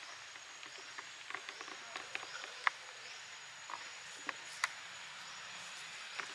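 Jungle insect ambience: a steady high insect tone with faint chirps about once a second, and scattered sharp clicks and taps, the loudest a little under three seconds in.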